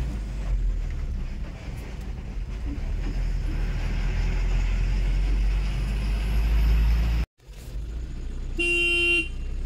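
Truck engine and road noise as a low, steady rumble in the cab, broken by a brief dropout. About nine seconds in comes one short horn blast, sounded at cows standing in the road ahead.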